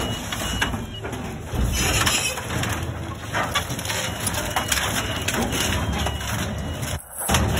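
Wooden pallets cracking and splintering as a compactor truck's hydraulic plate presses them down into a steel dumpster, a dense run of crackles and snaps. The truck's engine runs underneath as a steady low rumble.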